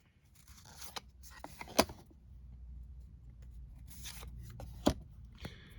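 Trading card pack wrapper rustling and tearing as the pack is opened, and cards being handled and flipped, with a couple of sharp clicks.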